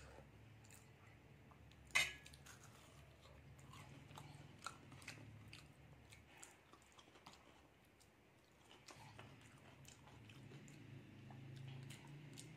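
Chewing and biting into a breadcrumb-coated egg devil (Bengali egg chop), faint and close, with small crunches and mouth clicks. A single sharp clink of tableware about two seconds in is the loudest sound.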